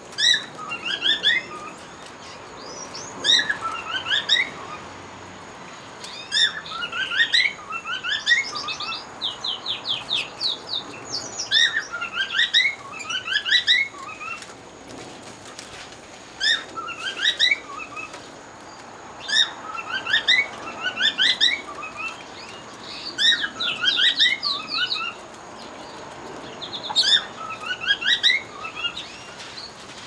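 Canaries singing: quick chirps and trilled phrases come in bursts every couple of seconds, with a fast, even trill about ten seconds in.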